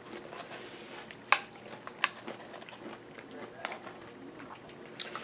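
Metal spoon clinking and scraping in a bowl of yogurt and granola, with two sharper clinks about one and two seconds in and a few lighter taps after, amid soft chewing.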